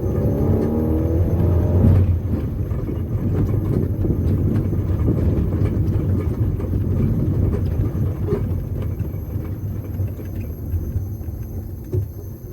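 Chevette four-cylinder engine on Arduino-controlled fuel injection, pulling the car with its pitch rising under acceleration for about two seconds. The rising note then breaks off and the engine settles into a low, steady rumble with road noise as the car drives on.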